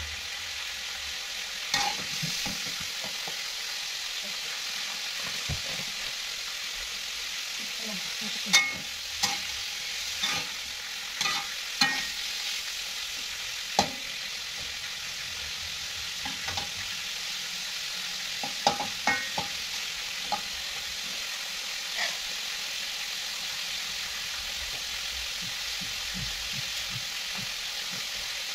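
Food sizzling steadily as it fries in hot oil in a wok, with a metal spatula scraping and clacking against the pan as the pieces are turned, most often in the first half. The last few seconds are the frying sizzle alone.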